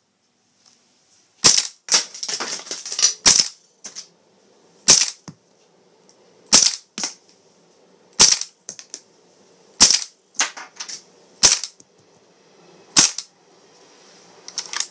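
Maruzen M1100 gas blowback airsoft shotgun firing eight single shots about a second and a half apart. Each is a sharp crack as the gas cycles the action and ejects a shell. Several are followed by lighter clicks and clatter as the ejected shells land.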